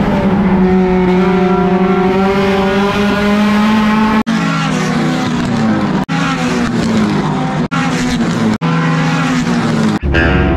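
Race car engine running hard at high revs on an oval track, its pitch sagging and climbing again. The sound breaks off abruptly for an instant several times.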